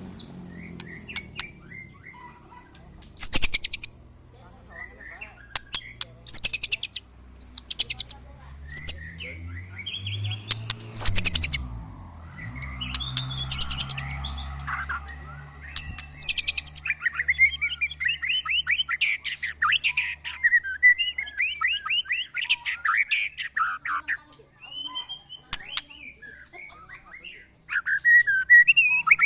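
Caged white-rumped shamas (murai batu) singing against each other, with repeated loud bouts of fast, very high-pitched phrases, then a denser, lower chattering from about halfway through. A faint low drone runs underneath.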